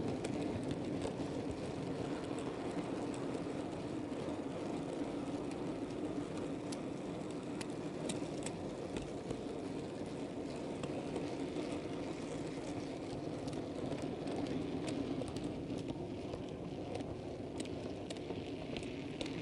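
Model railway goods wagons rolling along the track, heard from on board the moving train: a steady rumble of small metal wheels on rail, with scattered sharp clicks as they cross rail joints and pointwork, more of them in the second half.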